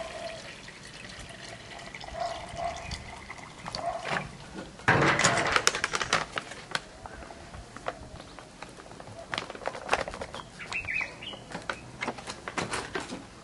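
Water poured from a plastic bottle into a plastic measuring jug. Then a foil packet of alginate powder rustles and crinkles as the powder is shaken into the jug, with a loud rush of noise about five seconds in and crackling from the packet after it.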